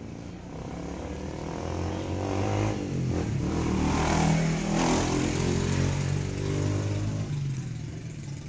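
A motor vehicle's engine passing by, growing louder to a peak about four to five seconds in and then fading away.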